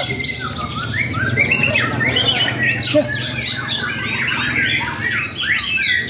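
Many caged songbirds singing at once in competition: a dense, overlapping chatter of quick chirps, trills and whistles that never lets up.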